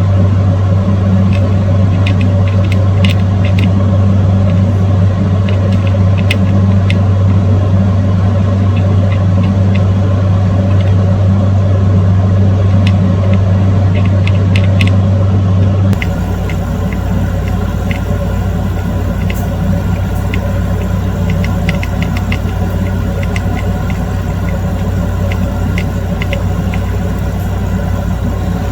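A loud, steady low hum with small ticks and crackles scattered through it. About sixteen seconds in, the hum drops slightly and changes character.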